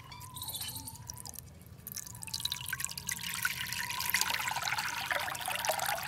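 Water splashing in a clay bowl as a hand swishes it, then water poured into the bowl from about two seconds in, a steady splashing trickle that grows slightly louder.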